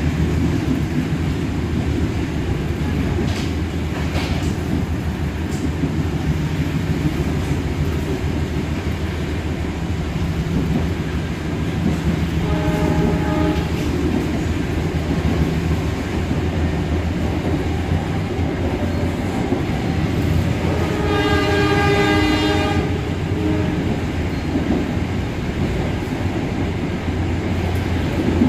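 Passenger train running at speed with a steady low rumble. The hauling diesel locomotive's horn sounds twice: a short, fainter blast about halfway through and a longer, louder one about two-thirds of the way in.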